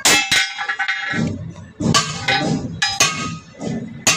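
Hammer blows on metal: about five sharp clangs, two in quick succession at the start and then roughly one a second, each leaving a ringing tone.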